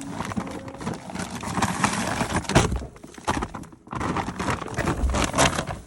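Loud rustling and clattering with many irregular knocks, dropping away briefly about three and a half seconds in.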